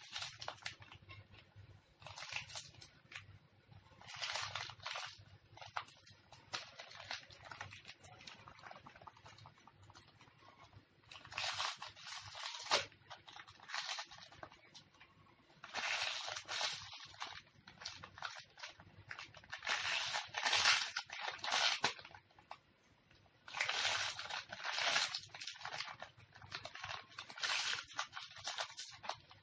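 Plastic snack wrapper crinkling and rustling in repeated bursts of a second or two as a monkey handles it while eating the wafers inside.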